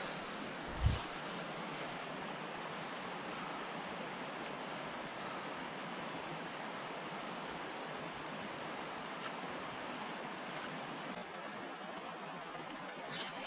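Continuous high-pitched insect trill over the steady hiss of a flowing river. There is a brief low thump about a second in.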